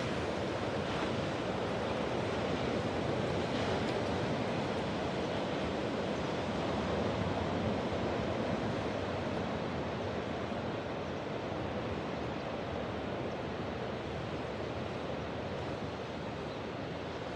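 Ocean surf washing onto the shore in a continuous rushing wash, a little louder in the first half and easing off toward the end.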